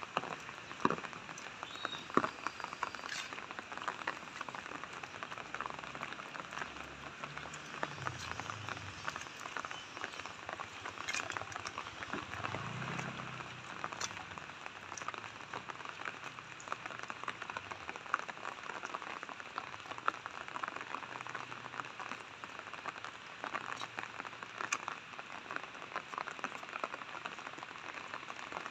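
Steady rain falling on wet pavement and puddles: a dense, even patter of drops with scattered louder drip ticks.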